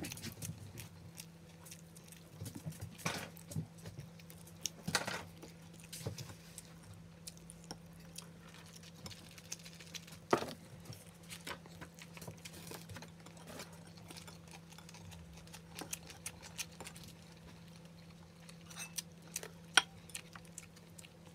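Close-up eating sounds: quiet chewing with scattered small clicks and taps as food is handled on a plate, the sharpest tap near the end. A steady low hum sits underneath.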